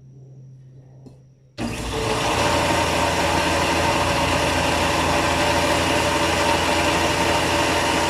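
Grinder running steadily while grinding the profile of a forged steel sword blade. It cuts in suddenly about a second and a half in, after a faint low hum.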